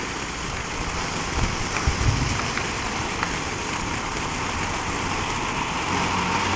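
Ground fountain fireworks spraying sparks: a steady rushing hiss, with a few small crackles and pops from the crackling stars.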